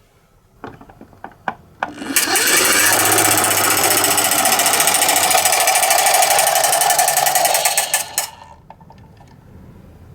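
Toy ambulance minicar running down a slope: after a few light clicks, a loud fast rattle starts about two seconds in and lasts some six seconds before stopping, followed by a few small clicks.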